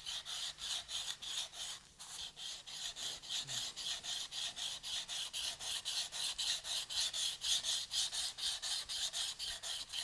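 Steel card scraper edge rubbed back and forth on a wet diamond sharpening plate, about four short strokes a second with a brief pause about two seconds in. The edge is being flattened square to 90 degrees.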